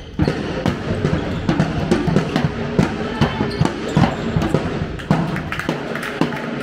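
A handball bouncing and striking the wooden hall floor repeatedly, with players' footsteps, ringing in a large sports hall: many short thuds, several a second.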